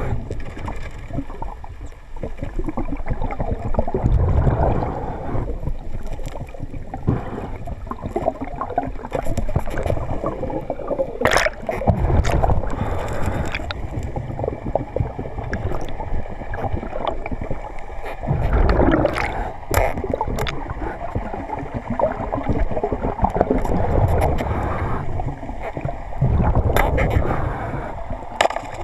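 Water moving against the camera, a muffled low rushing and gurgling that swells and fades, with a few sharp clicks or knocks.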